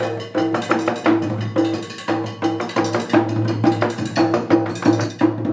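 Title music: a quick, even rhythm of sharp percussive strikes with short pitched ringing, over a steady low bass note.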